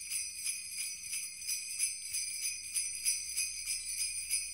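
Sleigh bells jingling on their own in a steady, even shaking rhythm, as a song's quiet intro before the beat comes in.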